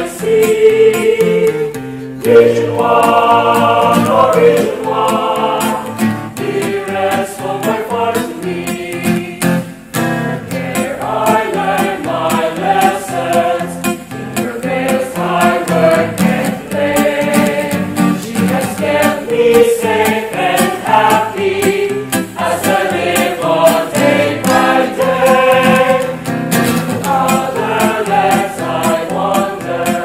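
A choir singing a song in praise of a home province, with lyrics such as "There's no better place I see" and "In her vales, I work and play", over instrumental accompaniment.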